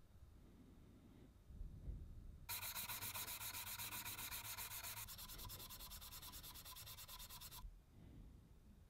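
Abrasive sanding of the old lamp's brass, in quick even strokes that start about two and a half seconds in and stop sharply about a second before the end.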